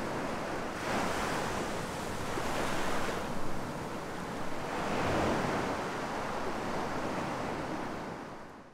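Surf washing onto a beach, a steady rush that swells and eases a few times and fades out near the end.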